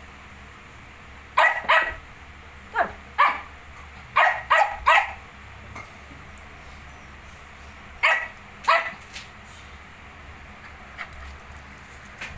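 Small dog yapping: short, high-pitched barks in quick pairs and threes, with a pause of a few seconds before two more.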